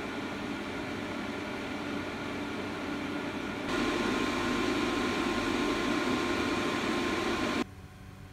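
A black 120 mm PC cooling fan running at 2500 RPM, giving a steady rush of air with a faint whine. About four seconds in it steps up to 3000 RPM, louder and with a clear steady whine on top. Near the end it cuts to a much quieter Noctua NF-A12x25 fan at its lowest PWM speed, leaving a faint hum.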